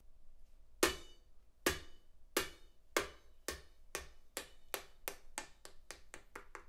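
Recorded music played through Polk L800 floor-standing loudspeakers and picked up in the listening room: a run of sharp percussive clicks that start a little under a second in and come faster and faster, the first being the loudest.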